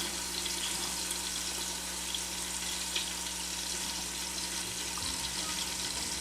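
Oil, butter and chicken juices sizzling steadily in the hot inner pot of an Instant Pot on sauté, a continuous even hiss with a few faint ticks.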